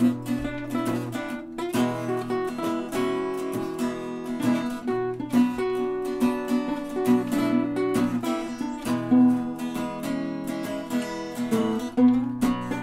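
Instrumental break in a country-style song: strummed acoustic guitar with no singing.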